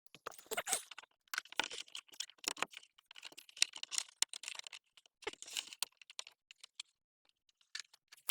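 Irregular clicks, taps and rustling of small plastic parts and packaging being handled, with a quiet pause late on and a sharper click at the very end.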